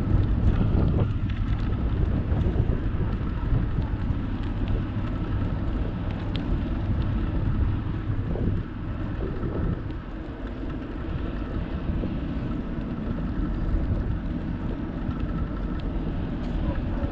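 Wind buffeting the microphone of a camera riding on a moving bicycle: a steady low rumble, with a faint steady whine underneath.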